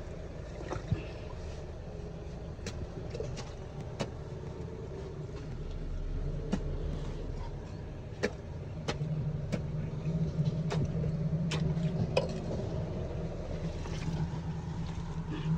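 A steady low mechanical hum, growing stronger about halfway through, with a dozen or so sharp knocks and clicks scattered through it from a worker clearing a blocked manhole.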